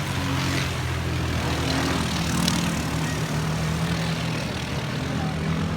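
ATV engine running steadily, a low drone with small shifts in pitch.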